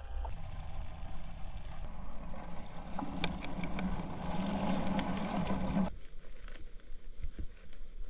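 Muffled sound from a camera submerged in shallow seawater: a low rumble and water movement with a few faint clicks. The sound changes abruptly about six seconds in.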